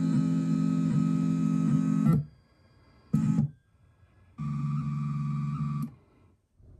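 Motor drive of a model-railroad train elevator running its lead screw with a steady, even whine. It stops suddenly about two seconds in as the platform comes down to track level, runs again for a short moment a second later, then for about a second and a half near the end.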